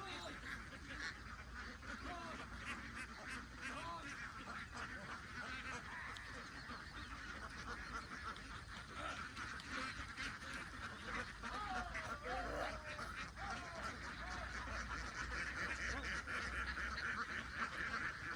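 A large flock of domestic ducks quacking continuously, many calls overlapping into a steady chatter that grows a little louder near the end.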